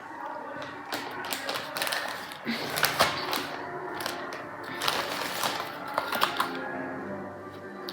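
Items and packaging being handled on a table: a string of irregular light clicks and taps, with quiet background music.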